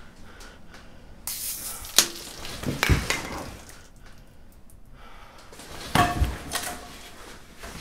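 Kitchen clatter: dishes and pots knocking and clinking, with sharp strikes about two seconds in and again about six seconds in, the second one ringing briefly.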